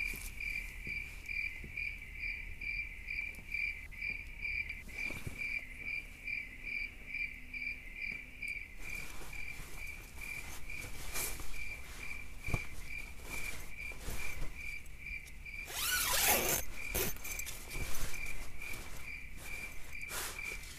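A cricket chirping in a steady, even rhythm of about three high chirps a second. From about nine seconds in, scattered clicks and rustling join it, with a louder scraping rush about sixteen seconds in.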